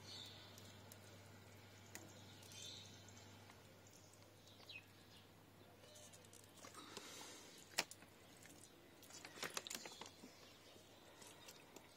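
Near silence: faint hiss with soft handling sounds from watering a potted seed bed with an upturned plastic bottle. There is one sharper click about eight seconds in and a quick run of small clicks shortly after.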